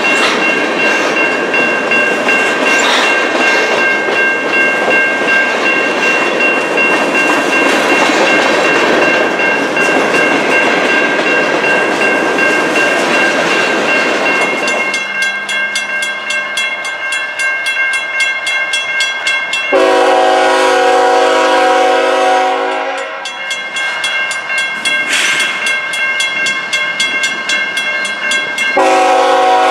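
Freight train running past with loud, even rail noise and a steady high-pitched ringing, which fades about halfway through. A locomotive's multi-note air horn then sounds one blast of about three seconds, and a second blast starts near the end.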